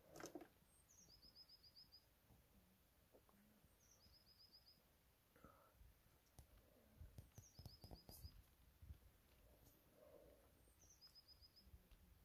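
Faint songbird song: a short phrase of one high note followed by a quick run of about six notes, repeated four times, about every three and a half seconds. A few faint clicks and low knocks are also heard.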